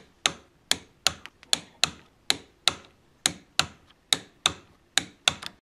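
Socket ratchet wrench clicking, its pawl ratcheting in sharp, even clicks about two to three a second as the end-cap bolts of a hydraulic steering orbital valve are run in during reassembly. The clicks stop near the end.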